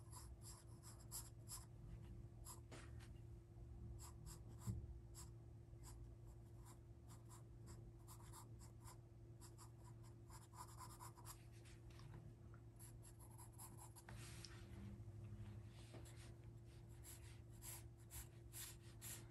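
Pencil sketching on paper: faint, quick scratching strokes, in runs of short lines, over a steady low hum.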